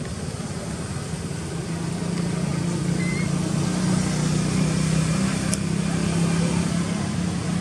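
A steady engine hum, getting louder about two seconds in and then holding.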